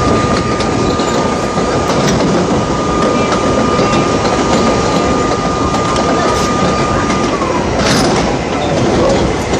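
R32 subway car running along the track: a steady rumble with faint clickety-clack from the rail joints and a thin high whine that dips slightly in pitch about seven seconds in, followed by a brief hiss.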